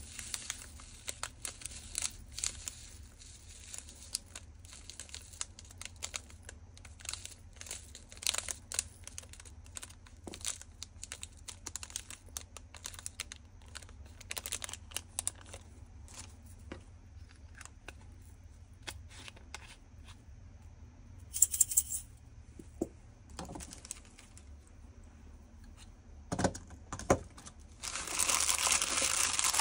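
Small plastic bags of diamond-painting drills being handled and opened, with scattered light crackles and ticks. A brief louder rustle comes about two-thirds through, and near the end a dense, louder crumpling of the plastic bags as they are gathered up.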